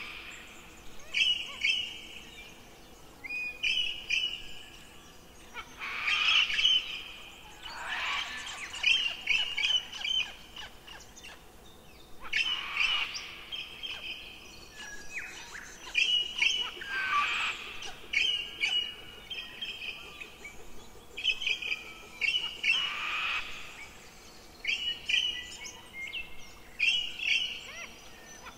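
Small birds chirping and trilling in repeated short phrases, with a soft rustle of heavy book pages being turned every few seconds.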